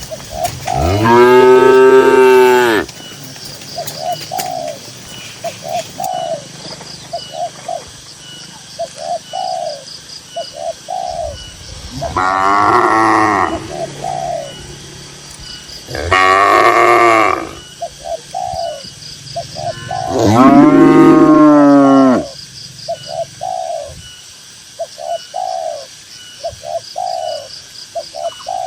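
Cattle mooing: four long, loud moos spaced several seconds apart, each lasting one to two seconds.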